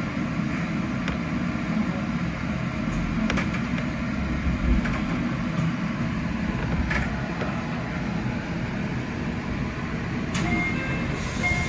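Steady low hum and rumble inside the cab of a JR Central 313 series electric train standing at a station platform, with a few faint clicks. A thin high tone starts near the end.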